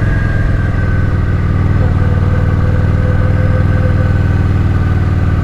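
Kawasaki Vulcan 900's V-twin engine running steadily, with no change in pitch.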